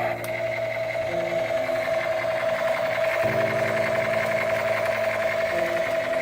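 Background electronic music: held low chords that change every two seconds or so, over a steady high-pitched buzzing tone.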